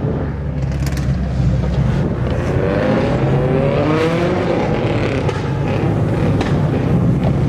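Car engines running as several cars drive along a street, with an engine revving up in a rising pitch about halfway through.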